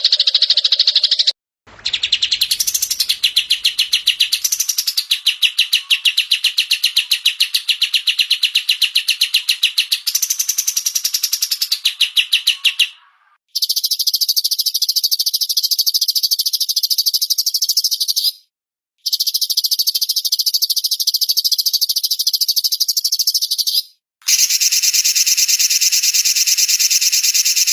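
Caged songbirds singing long, very fast rattling trills, high-pitched and continuous. The recording is made of separate spliced recordings that cut off abruptly every few seconds, and the pitch band shifts between sections.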